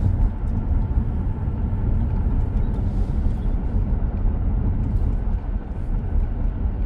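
Steady low road and tyre rumble inside the cabin of a 2023 Tesla Model X electric SUV while it drives along.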